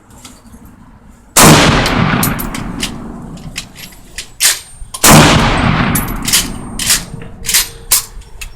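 Two loud gunshots about four seconds apart, each echoing away over a second or more, with fainter sharp cracks of other gunfire in between.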